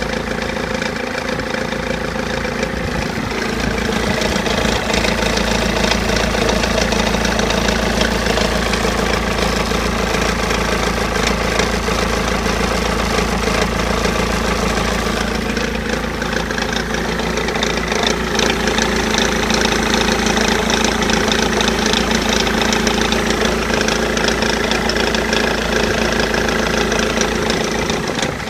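BMW E46 320d 2.0-litre four-cylinder turbodiesel idling roughly with a rattling noise, which the owner first took for a misfire. The rattle was later traced to a failing crankshaft pulley.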